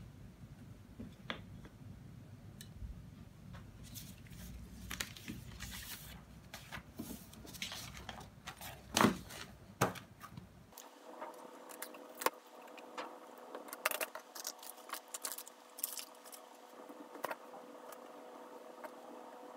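Papers and small desk items being picked up and cleared off a desk: paper rustling and light clicks and knocks, with a few sharper knocks as things are set down or gathered.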